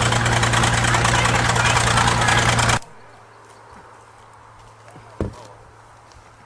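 Large engine running with a steady low hum and rapid even pulses. It cuts off abruptly a little under three seconds in, leaving faint outdoor background, with one sharp knock about two seconds later.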